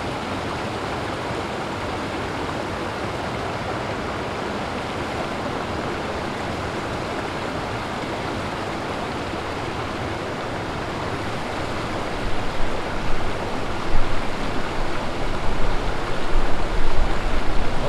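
Steady rush of flowing river water. Irregular low bumps join in during the last several seconds.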